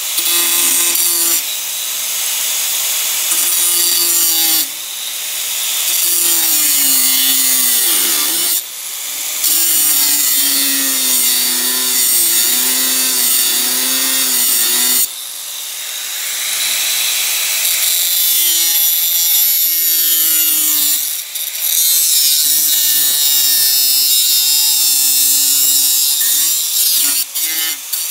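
Makita angle grinder with a thin cut-off wheel cutting steel plate: a loud hissing grind over the motor's whine. The whine sags in pitch as the wheel bites and rises again, and the cut eases off briefly a few times.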